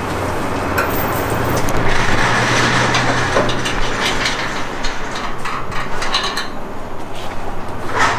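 Metal parts knocking and clinking as sway bar hardware is handled and fitted, over a steady low hum.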